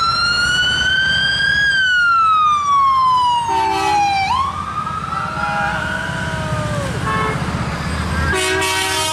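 Emergency vehicle siren wailing, slowly rising and falling in pitch twice over traffic rumble. Vehicle horns honk briefly about three and a half seconds in and again near the end.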